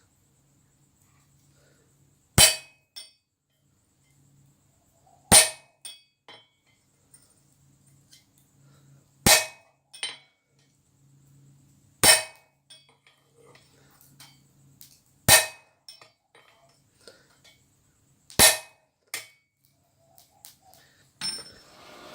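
Six heavy hammer blows on a steel punch, about one every three seconds, each ringing briefly and followed by a lighter tap or two: a hole being punched through the hot steel of a tong jaw, which takes several goes.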